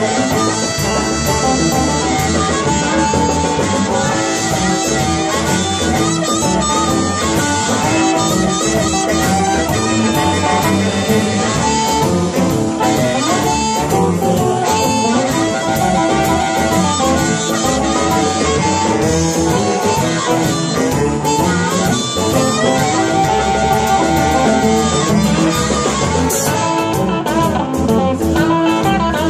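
Live blues band playing: a harmonica amplified through a small tube harmonica amp (the Sonic Pipe Windy City), blowing held, wailing notes over electric guitars, bass and drums.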